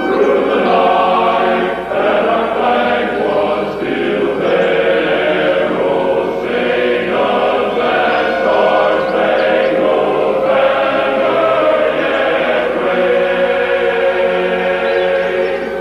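Choir singing long, sustained chant-like notes with many voices together.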